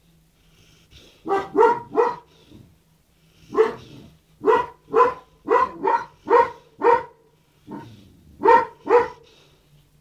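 A dog barking repeatedly: about a dozen short, sharp barks in quick runs of two to six, with brief pauses between the runs.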